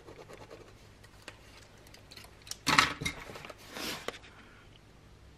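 Handling noises of pens and a notebook on a desk: light scattered ticks and a click, then a louder knock about halfway through followed by a softer rustle.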